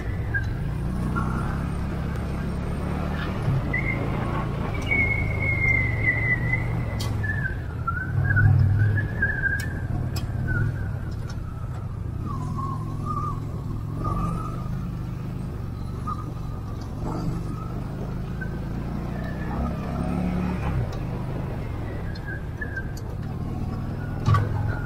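Yamaha Bolt's air-cooled V-twin engine running steadily under way on a gravel road, with a thin high tone that wavers and slides lower over time and a few sharp ticks.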